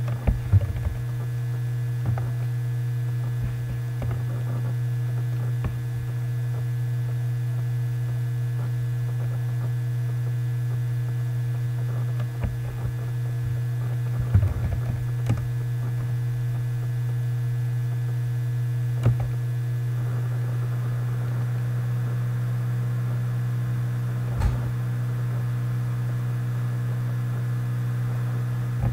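Steady electrical mains hum, with a scattering of short sharp clicks from the computer's mouse and keys.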